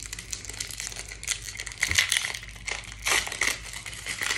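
Foil wrapper of a Pokémon trading card booster pack crinkling as it is handled and opened by hand: irregular crackling, with louder bursts about two and three seconds in.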